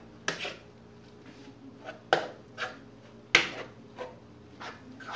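A utensil knocking and scraping against a frying pan as seasoned ground beef is stirred and chopped: several sharp knocks at irregular intervals, each with a short scrape.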